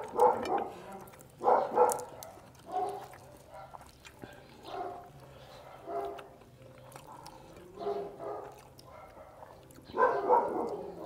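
A dog barking in short bursts every second or two, with a louder run of barks about ten seconds in.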